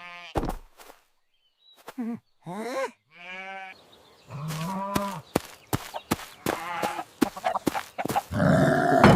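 Farm animals bleating: a few short, wavering calls, then a lower, longer call, followed by a run of sharp clicks and knocks and a loud noisy burst near the end.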